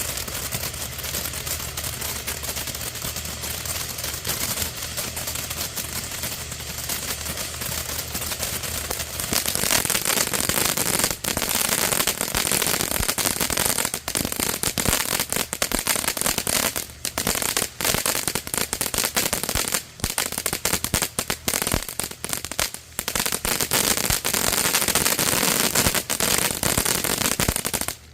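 Winda Snow Cone fountain firework burning with a dense crackling spray of many small pops, getting louder about a third of the way in.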